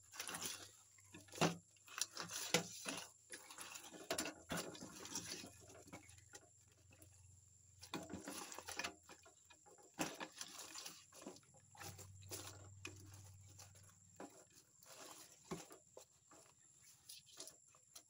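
Hands rubbing and handling fresh whole tilapia on a plastic plate: irregular wet scraping and clicking as the scaly fish slide against each other and the plate.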